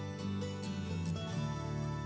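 Background music: a soft instrumental tune with plucked guitar notes.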